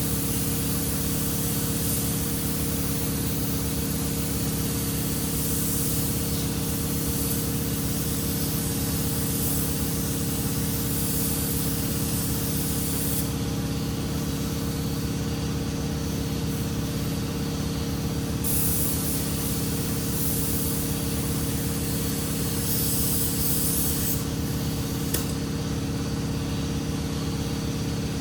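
Automotive paint spray gun hissing in long passes, stopping for a few seconds about halfway through and again near the end, over a steady machine hum.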